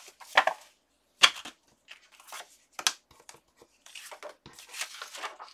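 Cardstock tags being handled and shuffled on a table: a series of short paper rustles and slides with a few sharp taps, then a longer rustle about four seconds in.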